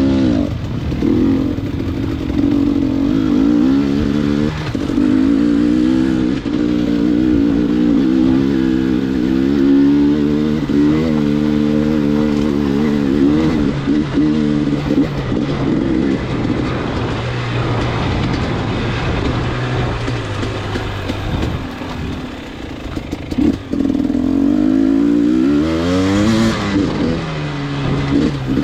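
Motor vehicle engine running while under way, its pitch rising and falling with the throttle, over steady road noise.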